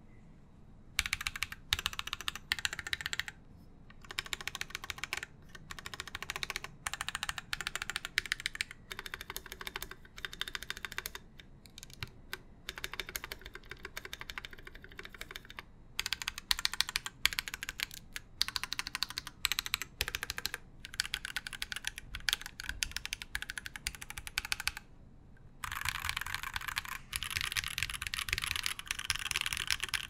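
Typing on a mechanical keyboard with tactile switches: quick runs of keystrokes with short pauses between them, then a faster, steadier run near the end.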